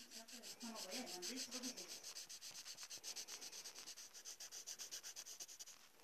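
A drawing tool scribbling quickly back and forth on paper, shading or colouring in, at about nine strokes a second; it stops near the end.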